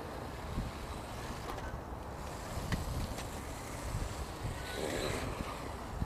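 Electric motors and gears of a 1:10 scale motor-on-axle RC rock crawler whirring as it drives over dirt, under a steady hiss of wind on the microphone, with a few faint ticks.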